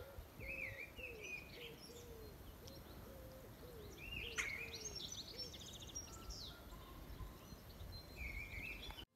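Faint outdoor birdsong: several small birds chirping and trilling high, over a lower call repeated about twice a second through the first half, with a low background rumble.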